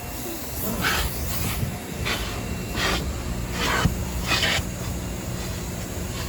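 A trigger spray bottle of glass cleaner squirting about six times in quick, uneven succession over a steady low rumble.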